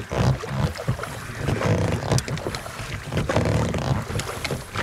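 Wind rumbling on the microphone, with scattered knocks and scraping from a small boat being handled during launching.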